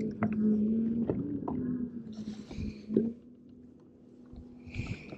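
Electric bow-mount trolling motor humming steadily, its pitch bending briefly about a second in. Knocks and rustles of handling in the boat sit over it, the sharpest about three seconds in.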